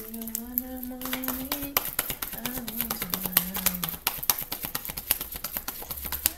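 A deck of tarot cards being shuffled by hand, a quick steady run of card clicks and slaps. In the first four seconds a woman hums two long low notes.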